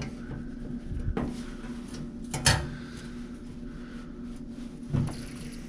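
Light metallic knocks and clicks from handling an MSR Firefly liquid-fuel stove's fuel valve and line while opening it to prime the burner, over a steady low hum.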